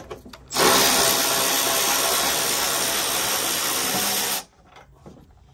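A handheld power tool's motor running steadily for about four seconds as a loud whirring hiss with a thin high whine, starting and stopping abruptly.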